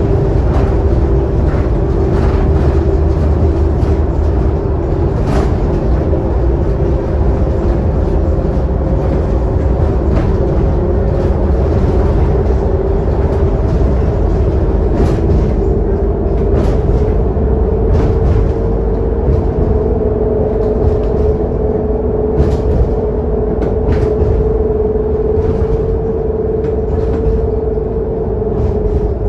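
Scania K280UD double-decker bus under way, heard from inside the lower deck: a steady low rumble and a running whine that rises slightly in pitch partway through as it gathers speed, with occasional brief clicks.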